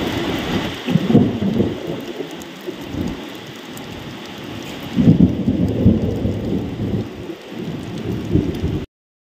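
Steady heavy rain with deep rolling rumbles of thunder, swelling about a second in, again around five seconds and once more near the end. The sound cuts off suddenly shortly before the end.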